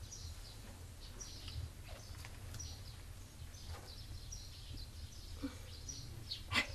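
Faint birds chirping, short falling chirps about twice a second, over low steady background rumble.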